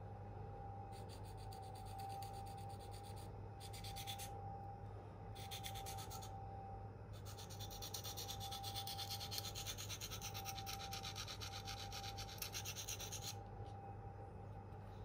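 Steel knife blade (K390) being stroked back and forth on a Venev F240 diamond sharpening stone: several short runs of quick scraping strokes, then a longer run from about seven to thirteen seconds in.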